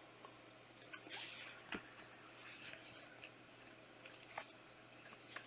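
Faint handling of trading cards: soft swishes and a few light clicks as cards are slid and flipped through by hand.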